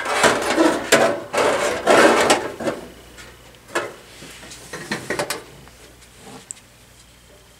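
Metal clattering and scraping as the heater's reflector and element panel is worked into its sheet-metal case, loudest in the first three seconds. A few lighter clicks and taps follow.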